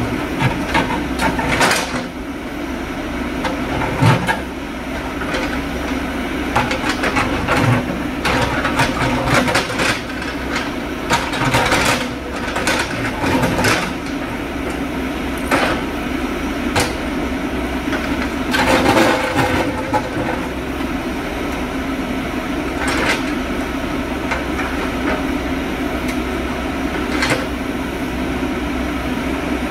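JCB backhoe loader's diesel engine running steadily under load as its backhoe bucket digs among rocks, with frequent clanks, knocks and scrapes of the steel bucket against stone.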